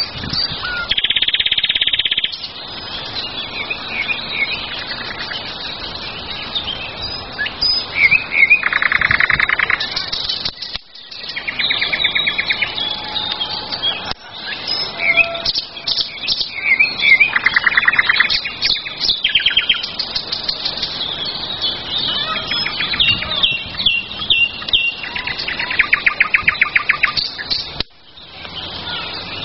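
Songbirds singing. Several overlapping birds give short chirps, and every few seconds there is a fast trill of rapidly repeated notes lasting a second or so.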